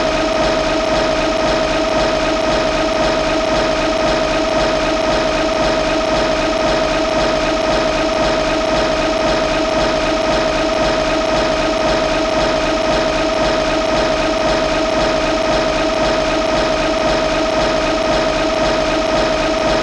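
Showa Mechagodzilla's spinning-hand sound effect: a steady mechanical whir with one strong, constant tone and fainter tones above it, unchanging throughout.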